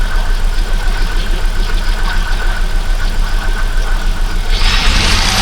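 Holden VX Commodore 3.8-litre Ecotec V6 idling steadily with an even pulsing beat while it warms up after three years standing. Near the end a steady rushing noise comes in over the idle.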